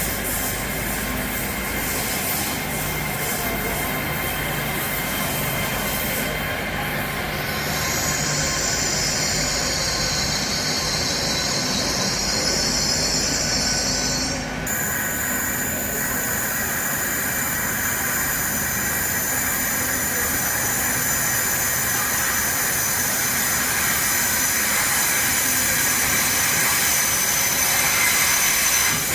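Passenger train running on the rails, with a high wheel squeal for several seconds in the middle, then a steady thin high whine.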